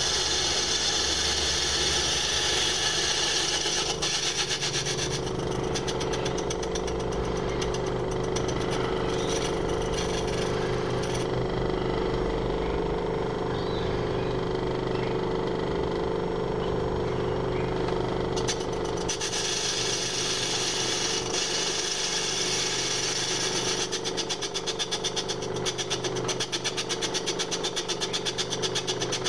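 Small metal lathe running steadily, turning a cast iron cylinder cover held in its three-jaw chuck. A higher hiss over the machine's steady whir drops away around the middle and comes back about two-thirds of the way through.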